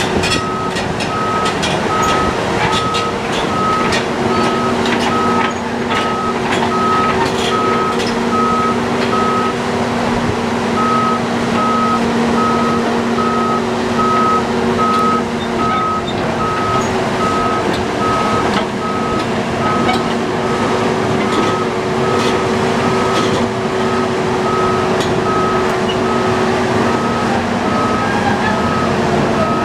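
Doosan DX520LCA tracked hydraulic excavator running, its engine droning steadily under an alarm beeping about twice a second, with a short break in the beeping about ten seconds in. Scattered sharp clicks and knocks come through during the first several seconds.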